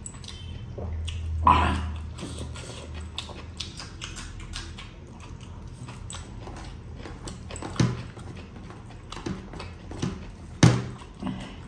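Close-miked eating sounds of a man chewing biryani scooped up by hand: steady wet chewing and small crackles, with a few sharper, louder mouth noises about 1.5 s, 8 s and 10.5 s in.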